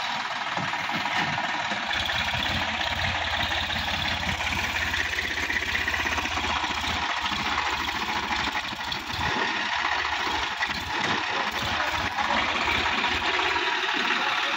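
Sonalika DI-50 RX tractor's diesel engine running as the tractor churns through deep mud, its low throb strengthening about two seconds in and easing near the end.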